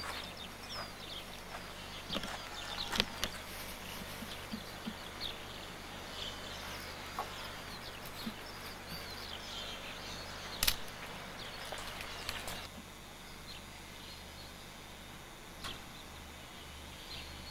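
Small birds chirping with many short, high calls over a steady low hum, with a sharp click about three seconds in and another louder one near the middle.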